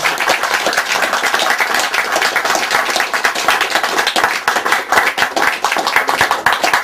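A small audience applauding with dense, steady hand clapping.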